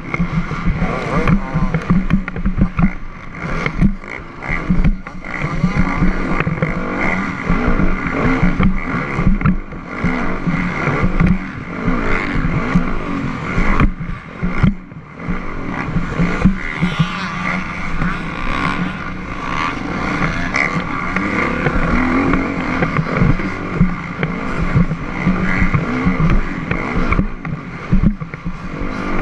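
Dirt bike engine heard from on the bike, revving up and down hard as the rider works the throttle around the track, with a brief drop in the engine note about halfway through when the throttle is shut.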